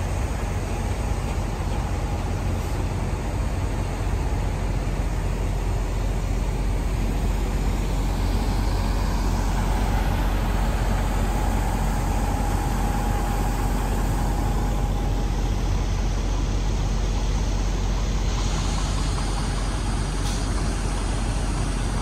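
Parked semi trucks' diesel engines idling: a steady low rumble with no breaks.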